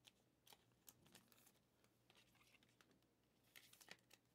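Faint crinkling and rustling of a thin plastic card sleeve being handled, with scattered small clicks and a short cluster of crinkles near the end.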